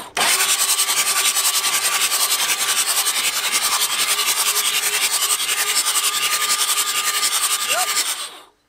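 Ford 7.3-litre IDI turbo-diesel V8 cranking over on its starter with the glow plugs removed, puffing through the open glow plug holes in a loud, fast, even rhythm over a steady starter whine, without firing. The cranking stops abruptly near the end.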